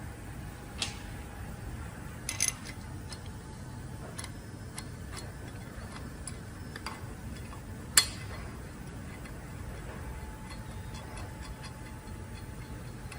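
Scattered sharp metallic clicks and clinks as tools and steel brake caliper parts are handled and fitted together, the loudest about eight seconds in, over a faint low hum.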